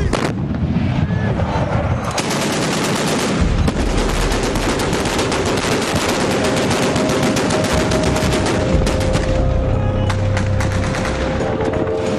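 Rapid automatic gunfire, a dense stream of shots through most of the stretch, with music and steady tones beneath it from about halfway on.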